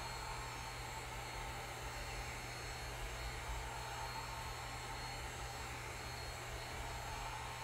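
Handheld electric heat gun running steadily, a constant rush of blown air with a faint whine. It is heating the aluminum bearing housing of an electric unicycle's motor cover so that the metal expands and frees the steel bearing.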